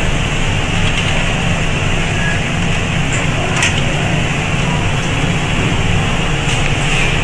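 Steady machine noise with a low hum, from a PCB assembly machine and fans running, with a faint tick about three and a half seconds in.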